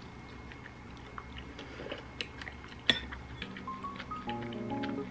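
Eating sounds: a spoon clicking lightly against a bowl of rice porridge, with one sharper click about three seconds in and faint chewing. Soft background music with a simple melody comes in about three and a half seconds in.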